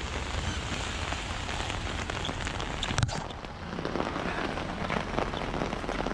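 Heavy rain falling on an umbrella overhead: a dense, steady patter of drops, with one sharper tap about three seconds in.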